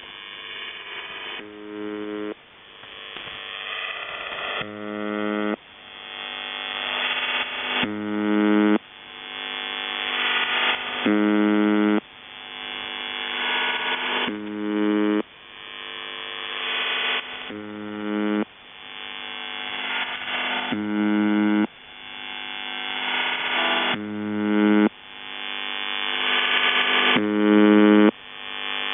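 UVB-76 'The Buzzer' Russian shortwave channel marker heard over a radio receiver: short buzz tones repeating about every three seconds, nine in all. Between the buzzes the idle audio of a CIS-12 modem channel leaks through as a rising hiss that swells until the next buzz, the sign of the transmitter's audio compression acting between buzz cycles.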